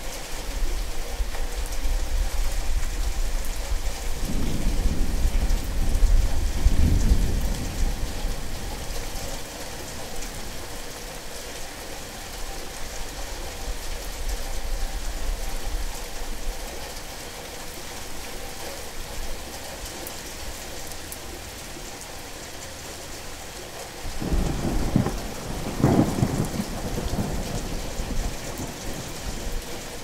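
Steady rain falling, with two long rolls of thunder: one rumbling through the first several seconds, and a second starting about four fifths of the way through and dying away slowly.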